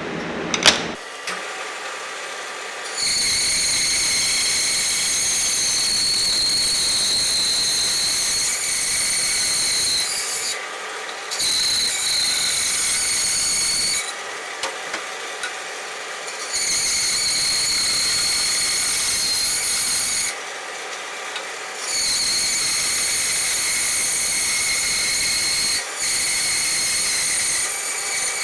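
A power tool runs in bursts of several seconds with short pauses between, a steady high-pitched whine each time. There is a sharp click just under a second in.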